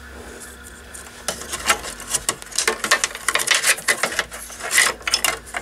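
Hands handling and tugging wires and a ribbon cable inside a sheet-metal UPS chassis: a quiet first second, then a dense string of light clicks, rattles and rustles.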